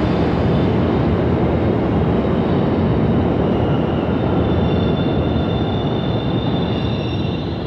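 New York City subway train rolling slowly into the terminal platform: a steady rumble of wheels on rail with a faint high whine, easing slightly near the end.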